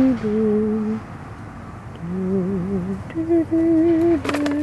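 A person humming a slow tune, holding each note for about half a second to a second, some with a slight waver. A few quick clicks come about four seconds in.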